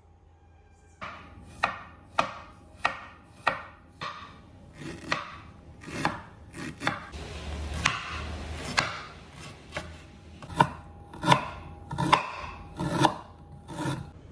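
Kitchen knife slicing peeled fresh ginger root on a wooden cutting board: a steady run of chops, roughly one every half second, starting about a second in. Each chop ends in a sharp knock of the blade on the board, loudest near the end.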